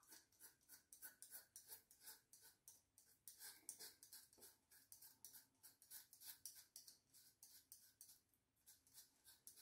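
Gillette Sensor 3 three-blade cartridge razor rasping through beard stubble and shaving cream in quick, short strokes, several a second, faint.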